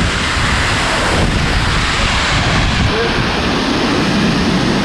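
Waterfall's steady rush of falling water, with wind buffeting the microphone.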